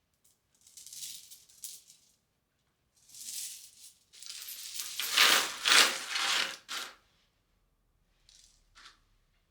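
Rattling in several short bursts, loudest and longest in the middle, with quiet gaps between them.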